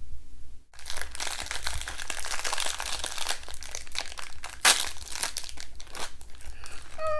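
Plastic blind-bag wrappers of an LOL Surprise toy crinkling and tearing as they are pulled open by hand, a dense crackle starting about a second in, with one louder crackle past the middle.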